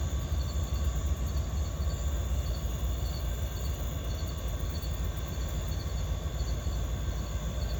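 Crickets chirping in a steady repeating pattern over a continuous low rumble.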